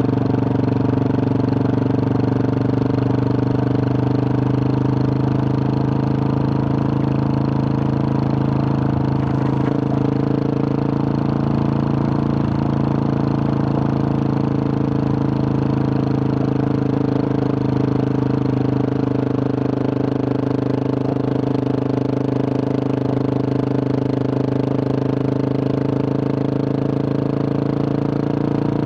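2021 Husqvarna 701 Supermoto's single-cylinder engine, breathing through a Wings aftermarket exhaust with a large dB killer, running steadily at a cruising pace on a dirt road. The engine note holds almost level, changing slightly near the end.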